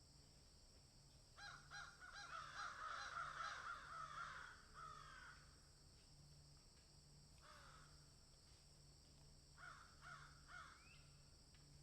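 Crows cawing: a flurry of overlapping caws from several birds starting about a second in and lasting a few seconds, then a lone caw, then a short run of three caws near the end.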